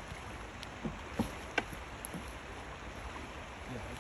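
Steady rush of flowing river water with wind rumble on the microphone, and three short light knocks of the wooden hive boxes being handled about a second in.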